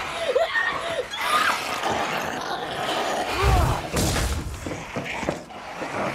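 Battle sound effects from a TV drama: short shrieking cries that rise and fall, with crashes and thuds. A heavy thud and a sharp crash come about three and a half to four seconds in.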